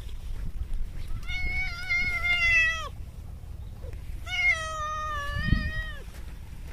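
A cat meowing twice, two long drawn-out meows of about a second and a half each, both dropping in pitch at the end.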